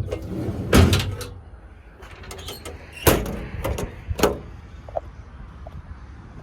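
Metal compartment doors of an IMT service-body toolbox being opened and shut: a loud bang about a second in, then a few more knocks and latch clicks around three to four seconds in.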